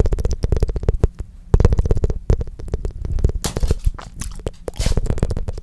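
Close-miked ASMR tongue fluttering: rapid wet flaps of the tongue in quick runs, with a short pause about a second in. Thinner, sparser clicks and a couple of breathy puffs come in the second half.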